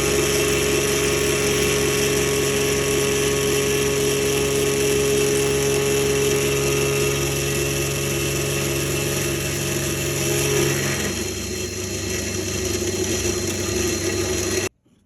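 Electric drill motor running steadily with a held whine, its tone shifting about eleven seconds in, then cutting off abruptly near the end.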